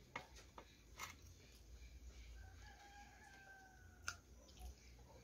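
Faint rooster crowing: one long, slightly falling call starting about two and a half seconds in, over soft mouth clicks from chewing.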